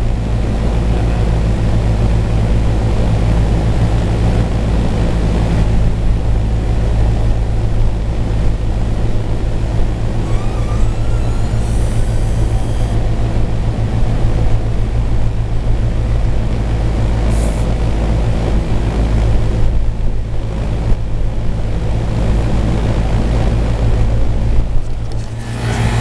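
Carrier dual-circuit rooftop air conditioner running, its two condenser fans blowing steadily right beside the microphone over the low, steady hum of its hermetic compressors.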